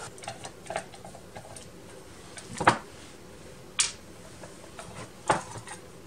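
Small metal project box being worked open by hand on a workbench: three sharp clicks about a second or more apart, with a few faint taps between.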